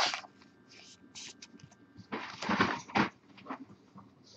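Trading cards and thin plastic penny sleeves being handled: a string of short rustles and scrapes, busiest and loudest around the middle.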